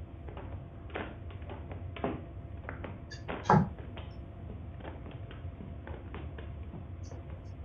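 A wheeled walking frame knocking and scraping on the floor, with the scuffs of short shuffling steps, during the slow walk of a woman with vascular parkinsonism. The knocks come irregularly over a low steady hum, with one louder thump about three and a half seconds in.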